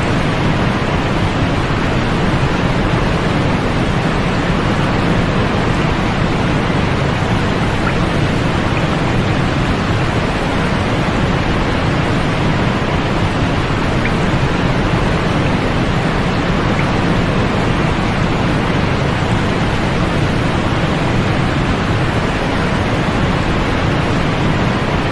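Steady, unchanging sleep noise: a continuous, even hiss, fuller in the low end and softer in the highs, closer to pink noise than to bright white noise.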